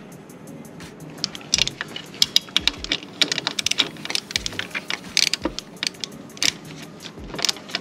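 Hand socket ratchet clicking in quick, irregular runs as a bolt on a car's throttle body is turned.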